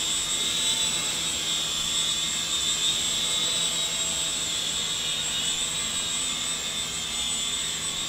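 Syma S200 toy RC helicopter's small electric motors and rotor blades running in flight after an auto takeoff, a steady high-pitched whine over a low hum.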